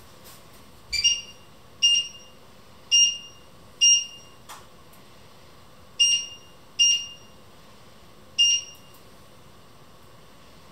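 Electronic beeper of a kitchen appliance's control panel: seven short, high beeps at uneven intervals, as keys are pressed one after another.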